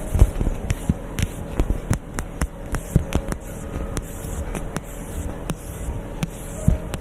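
Close-miked ASMR trigger sounds: an object brushed and tapped against the microphone, giving irregular soft taps, scratches and low thumps, several a second.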